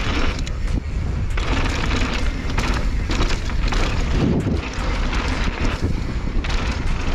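Wind buffeting the microphone of a camera on a mountain bike riding down a dry dirt trail, with tyre and trail noise underneath: a loud, steady low rumble with surges of hiss every second or two.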